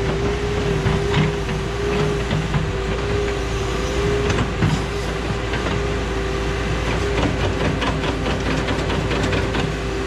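Cat 314E excavator working, its diesel engine running steadily with a constant whine, while the bucket digs a ditch through dirt and rock with scattered clicks and knocks.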